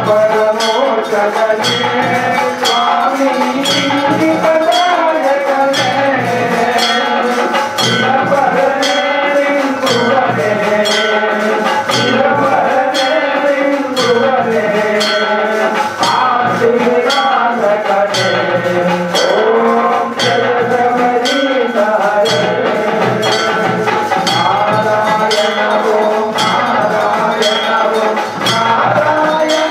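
Devotional music during a temple aarti: a wavering, bending melody over evenly repeated metallic bell strikes about twice a second, with a steady ringing tone held throughout.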